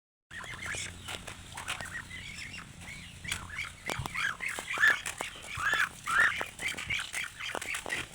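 A flock of birds calling with many short, overlapping chirps, a few louder calls standing out about five and six seconds in, and scattered sharp clicks.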